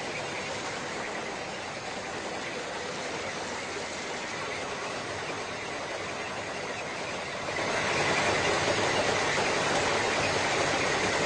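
Steady machinery noise from a rail track-maintenance train, stepping up about two-thirds of the way in to a louder, closer running of the ballast-cleaning machine's working unit over the track.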